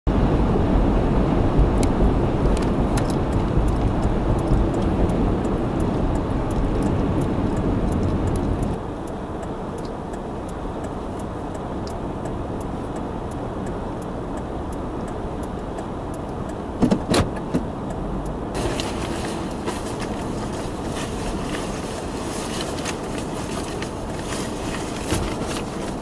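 Road and engine rumble of a car driving on a snowy highway for the first nine seconds or so. After a cut, a quieter steady hiss of wind outdoors, with a few sharp knocks just past the middle and crackling wind on the microphone later on.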